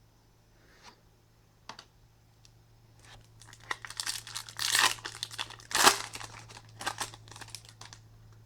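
Foil wrapper of a Topps Chrome baseball card pack being torn open and crinkled by hand, a few light clicks first, then about five seconds of crackling tearing, loudest about halfway through.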